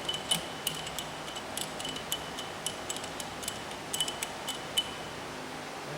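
Irregular sharp metallic clicks with a short bright ring, about fifteen in four and a half seconds, as the Y-axis handwheel of a Bridgeport EZ-Trak DX CNC vertical mill is turned by hand. A steady machine-shop hiss runs underneath.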